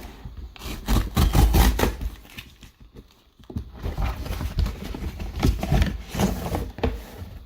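Handling of a boxed smartphone's packaging: irregular rustling, scraping and clicks from the box and wrapping, with heavier low bumps about a second in.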